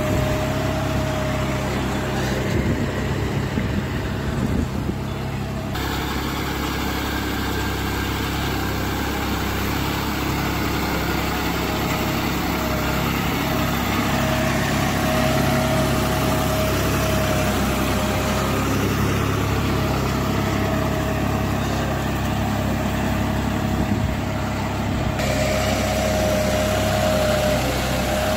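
John Deere 5310 tractor's three-cylinder diesel engine running steadily under load as it pulls a tine cultivator through the soil, with a thin whine above the engine note.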